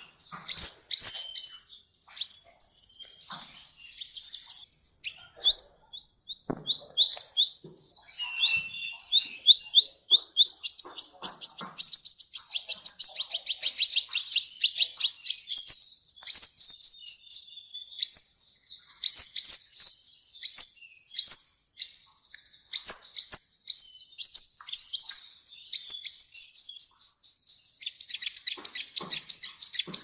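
Sunbird (kolibri ninja) singing a continuous, fast, high-pitched song of quick sweeping chirps run together into rapid trills, with a varied 'full isian' fill of phrases.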